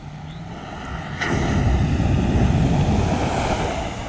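Lexus GX470 SUV driving past close by on a wet gravel road: a low engine hum, then from about a second in a loud rush of tyre noise on the wet gravel, easing off near the end.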